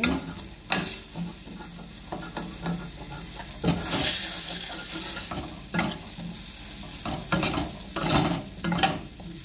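Pork and vegetables sizzling in a stainless steel wok while a metal spatula and spoon stir and scrape them, with repeated clinks and scrapes of metal on the pan. The sizzling swells louder about four seconds in.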